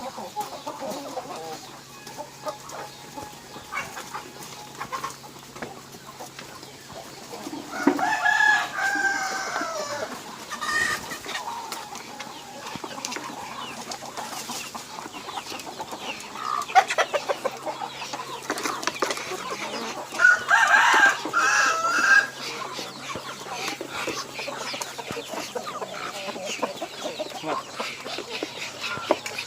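A flock of kampung chickens clucking, with a rooster crowing twice, about eight seconds in and again about twenty seconds in.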